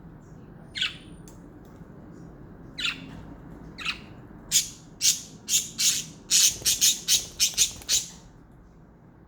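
Pet budgerigars calling: a few single short calls, then a quick run of about a dozen chirping calls between about four and eight seconds in.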